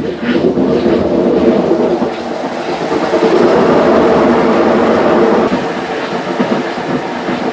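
Consul Maré Super 10 kg washing machine spinning with a loud, rattling mechanical racket, then cut off suddenly at the end. The noise during the spin is one of the machine's faults, which the repairer fixes by replacing its seals.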